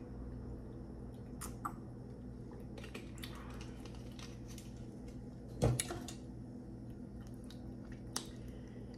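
Small mouth and handling sounds from drinking out of a plastic water bottle: a few soft clicks and a short swallowing smear over a steady low hum. One louder knock comes a little past halfway and is the loudest sound.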